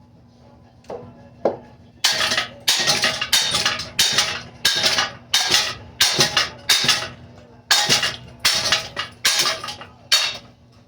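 A Hampton Bay Hugger ceiling fan being struck over and over, each blow a loud metallic clang with a short ringing decay. Two light knocks come first, then about a dozen heavy hits at roughly one every two-thirds of a second, with a brief gap in the middle.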